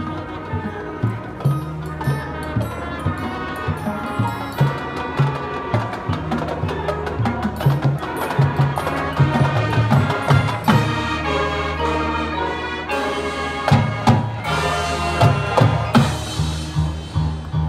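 High school marching band playing its field show: brass and winds sustaining chords over repeated drum strikes and percussion hits, recorded from the bleachers of an open-air stadium.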